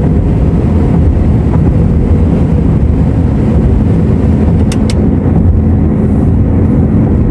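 Steady low rumble of a car driving along a highway, heard from inside the cabin: road and engine noise with a faint constant hum. Two brief clicks a little past halfway.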